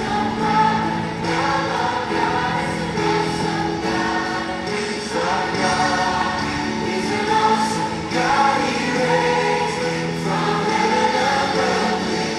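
A choir singing a Christian gospel song with instrumental backing, the voices holding long notes.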